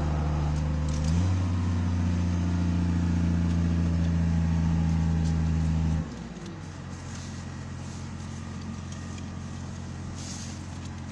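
Digger derrick truck's engine running at raised speed, stepping up in pitch about a second in, then dropping back to a quieter low idle about six seconds in.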